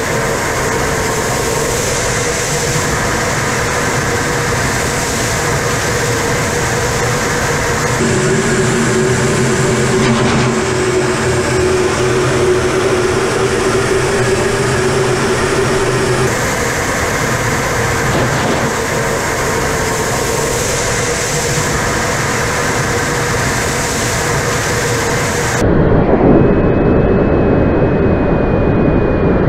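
Su-25 attack jet in flight, heard from the cockpit: steady jet engine and airflow noise with a low steady whine, its tone shifting at cuts about 8 and 16 seconds in. Near the end it changes to a heavier rushing wind noise with a faint high whistle, from a camera mounted outside under the wing.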